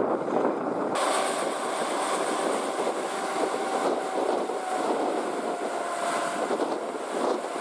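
Loaded Tata tipper truck's diesel engine running under load as it drives through soft sand, with a steady whine that drifts slowly lower in pitch. The sound turns abruptly brighter about a second in.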